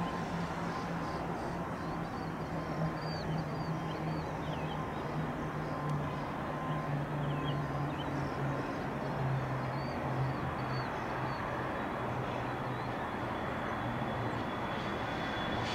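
Bombardier CRJ700's twin GE CF34 turbofans heard from a distance as a steady rumble during the takeoff roll, with a low hum that slowly sinks in pitch. A thin high whine joins in over the last few seconds. Small birds chirp over it for much of the time.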